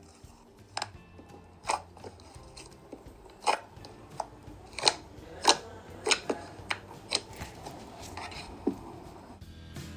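Slime being squeezed and poked, giving irregular sharp clicks and pops, over quiet background music.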